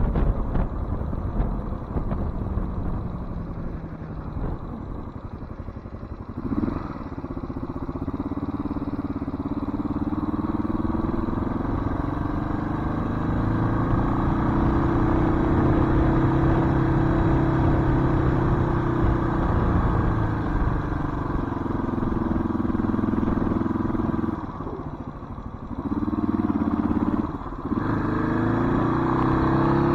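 1993 Suzuki DR650's single-cylinder four-stroke engine running on the move, its pitch rising and falling with the throttle, with wind rushing over the microphone, strongest in the first few seconds. The engine note drops away briefly twice near the end.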